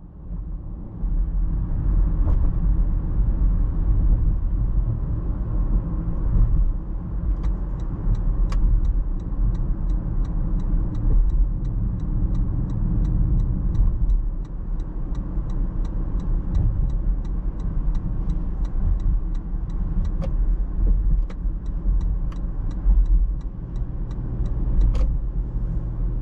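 Car cabin noise at expressway speed: a steady low rumble of road and engine. From about seven seconds in, the turn-signal indicator ticks evenly at about two to three ticks a second, as it does while signalling to merge.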